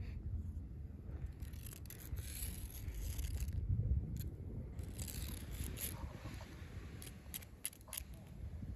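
A stray cat eating food off the ground, with scattered small crunches, clicks and scrapes over a steady low rumble.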